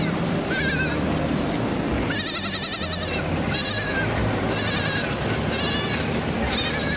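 A series of about six short, high, wavering animal calls, bleat-like, at about one a second. The longest and loudest comes two to three seconds in.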